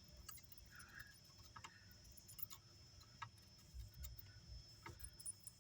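Near silence with a few faint, scattered light ticks and taps.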